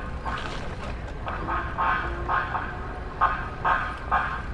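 Short electronic warning beeps in sets of three, about two beeps a second, from a police cruiser backing up.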